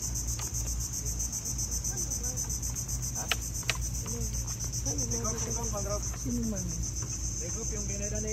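Insect chorus, a steady high, rapidly pulsing trill typical of crickets or cicadas in mangrove forest. Two sharp clicks come about three seconds in, with faint distant voices and a low rumble underneath.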